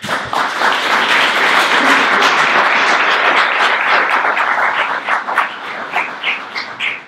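Audience applauding. The applause thins out to a few scattered claps near the end.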